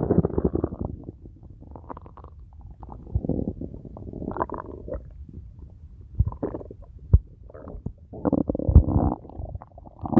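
Bowel sounds heard through a stethoscope over the abdomen: loud, irregular gurgles and rumbles that come in bursts every second or so, with a longer gurgling run near the end. These are the intense, prolonged 'struggle' bowel sounds presented as typical of a mechanical bowel obstruction (mechanical ileus).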